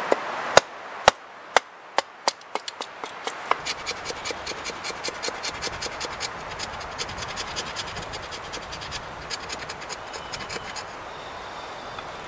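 Wooden baton striking the spine of a knife to split a stick on a chopping block: six sharp knocks in the first two and a half seconds, about two a second. Then a knife shaving thin kindling sticks against the block, a run of quick light scraping strokes, several a second, that dies away near the end.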